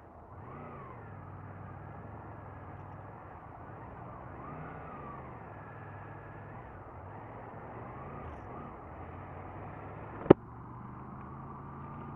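Honda VFR800 V4 motorcycle engine pulling and easing off, its pitch rising and falling several times under a steady hiss. A single sharp click about ten seconds in.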